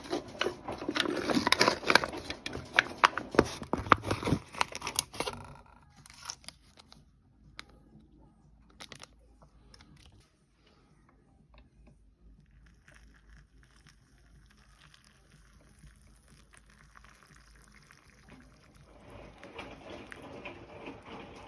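Pot noodle packaging being crinkled and torn open, a dense crackling for the first five seconds or so. After that come only faint, scattered handling clicks and soft rustling.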